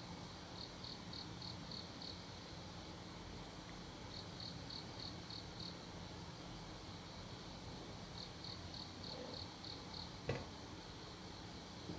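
An insect chirping in short high-pitched bursts of about six quick pulses, repeating roughly every four seconds, over a faint steady hum. A single sharp knock about ten seconds in.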